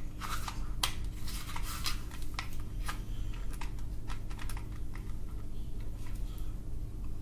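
Plastic toy pump shotgun handled in the hands: a run of light clicks and rattles, thickest in the first three seconds, then scattered.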